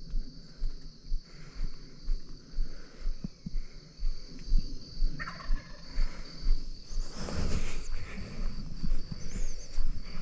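An Osceola wild turkey gobbler gobbles once about halfway through, over footsteps crunching through dry palmetto scrub about twice a second. A loud brushing rustle comes shortly after the gobble.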